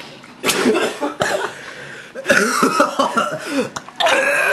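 A person coughing and retching in several harsh, voiced heaves, vomiting onto a sandwich.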